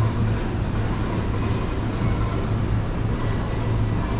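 Steady low hum with a haze of background noise: indoor market hall ambience, with no distinct event.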